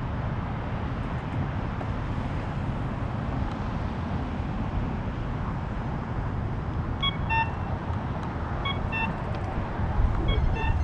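Steady wind rush and rolling noise from riding a bicycle along a paved trail, heaviest in the low end. In the second half, three short pitched chirps, each a quick pair of notes, sound about a second and a half apart.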